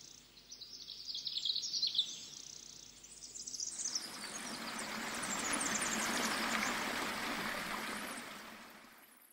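Logo-intro sound effect: a high, glittering shimmer of quick chirp-like sparkles, then a broad rushing swell that builds to a peak and fades away near the end.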